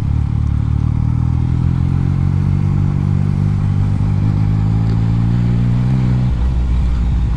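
Yamaha MT-09's inline-three engine running at a steady speed under way. About six seconds in, the engine note changes abruptly.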